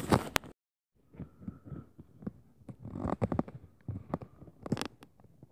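Irregular heavy thumps and knocks of footsteps stomping on the floor above, heard through the ceiling. It opens with a loud rustling burst of the phone being handled, then a brief dead gap.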